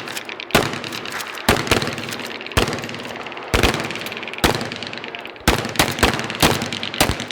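Shotguns firing on a range, about a dozen shots from several shooters at an uneven pace, some in quick pairs, each followed by a short echoing tail.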